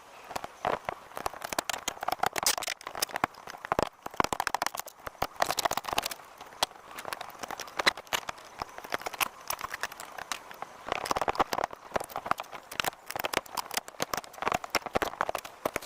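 Rapid, irregular knocking, cracking and scraping of a leaking balcony deck being torn out.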